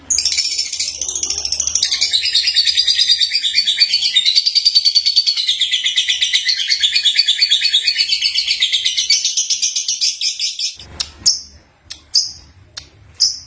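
Young lovebird singing: a long, rapid, high-pitched chattering warble that runs unbroken for about eleven seconds, then breaks into a few short separate chirps near the end.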